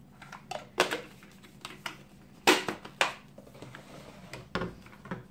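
Sharp plastic clicks and taps from handling a small pull-cord mini chopper as its lid and container are fitted together and paste is added, about four separate knocks spread out, the loudest two close together near the middle.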